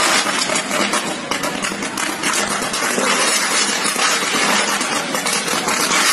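A shorting electrical cable burning and arcing, giving a steady hissing crackle.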